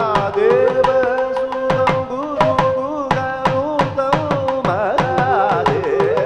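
Live Indian classical devotional music: a male singer's voice and a bamboo flute carry a wavering melody over a steady drone. Hand-drum strokes keep a quick, even rhythm throughout, with repeated falling bass notes.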